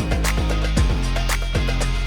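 Background music with a steady beat, strong bass and plucked guitar.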